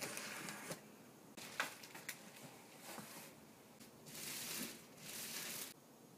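Handling of a cardboard shipping box and its packaging: a scrape of cardboard, a few sharp taps and clicks, then two longer rustles of a clear plastic bag being pulled off the boxed figure about four seconds in.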